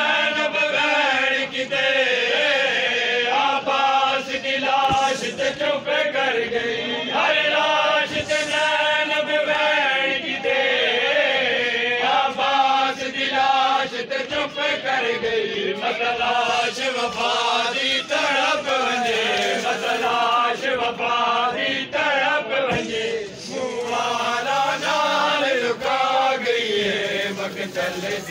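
Male voices chanting a slow, melodic Muharram lamentation (nauha), with long held notes that rise and fall, going on without a break.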